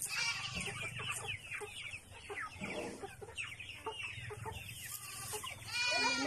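A flock of Rhode Island Red chickens clucking and calling over one another, many short calls overlapping.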